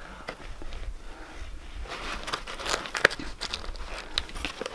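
Rustling and crinkling of a padded camera bag and its contents as a hand rummages inside, with scattered light clicks and knocks of plastic cases and a cardboard box, the sharpest click about three seconds in.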